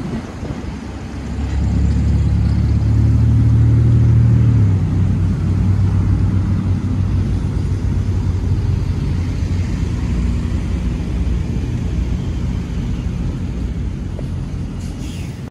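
Diesel locomotive engines running with a steady low drone. It is loudest in the first few seconds and drops in pitch about five seconds in, then carries on steady.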